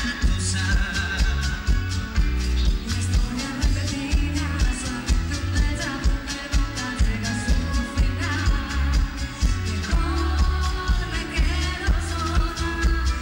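Live dance-band music amplified through a PA: a singer's voice over keyboards and a steady, heavy beat.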